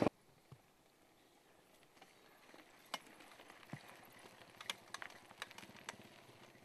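Mountain bikes rolling over a dirt track: a faint crunch of tyres that builds about two seconds in, with scattered sharp clicks and rattles from the bikes.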